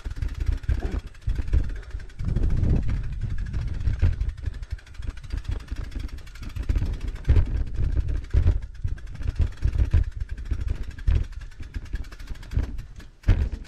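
Gusty wind buffeting the action camera's microphone, a ragged low rumble that swells and dips, with a few short knocks and one sharper knock near the end.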